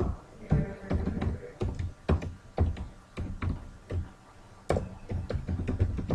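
Typing on a computer keyboard: irregular keystrokes, each a sharp click with a low thud, a few a second.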